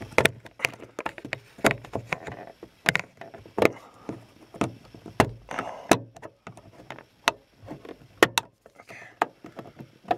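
Sharp plastic clicks and taps, irregular and a little under two a second, as a plastic pry tool works at the clips of a 2012 Honda Fit's front map-light lens cover to pop it out of the headliner.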